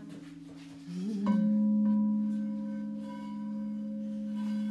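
Quartz crystal singing bowls ringing. About a second in, a new tone swells and rises slightly in pitch, then a short knock. After that a strong, steady, pure hum with faint higher overtones holds, as a bowl is rubbed around its rim with a mallet, over the softer tones of other bowls still sounding.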